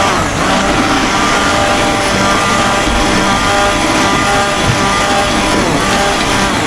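Electric blender running steadily at high speed, puréeing a cooked gravy to a smooth, thick texture.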